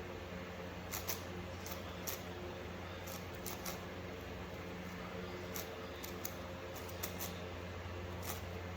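Faint, irregular clicks of a 7x7 Rubik's cube's layers being turned, over a steady low hum.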